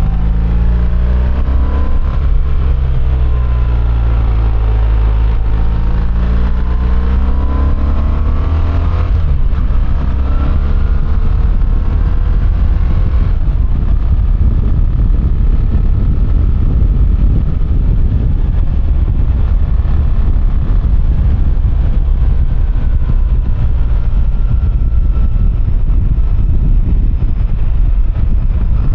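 BMW R1300GS boxer-twin engine on the move, its pitch rising and falling with the throttle for the first nine seconds or so. From about halfway through, a steady rushing wind and road noise covers the engine, which stays faint beneath.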